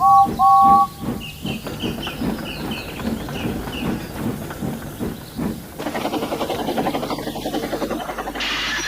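Steam locomotive whistle giving two short two-note toots, then the engine puffing steadily, about two chuffs a second, with steam hissing.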